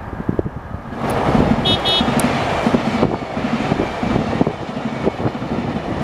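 Z22500 (MI2N) double-deck electric commuter train passing close, its wheel and running noise swelling about a second in and staying steady. Two short high toots come just before the two-second mark. Wind rumbles on the microphone.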